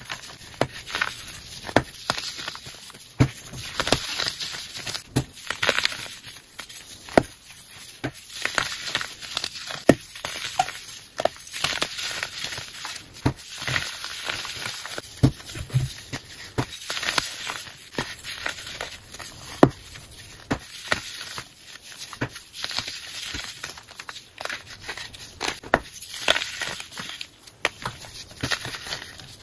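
Crispy baking soda chunks crushed and crumbled between bare fingers: irregular crisp crunches and crackles, with a gritty rustle of powder between them.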